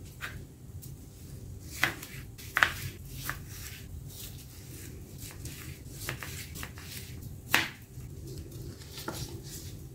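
Chef's knife slicing a tomato into wedges on a plastic cutting mat: irregular light taps and clicks of the blade meeting the mat, the sharpest about seven and a half seconds in, over a low steady hum.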